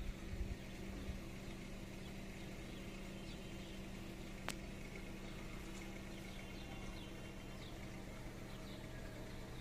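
A steady low mechanical hum with several fixed tones, with faint high bird chirps scattered through it and a single sharp click about four and a half seconds in.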